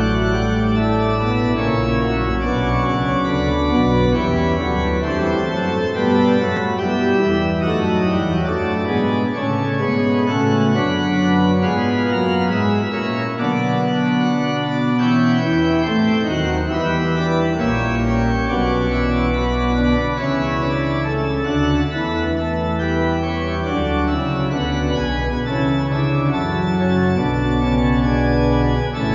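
Hauptwerk virtual pipe organ sounding the St. Mary-le-Bow sample set, played on two manuals and pedals: steady, full chords in moving counterpoint. The deep pedal bass drops out for about ten seconds in the middle, then comes back.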